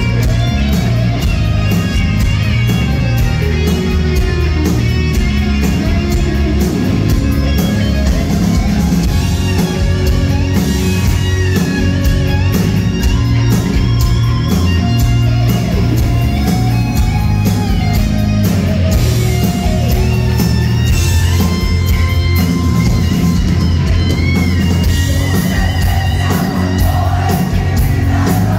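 Hard rock band playing live and loud: a lead electric guitar with bending, gliding notes over drums and bass guitar.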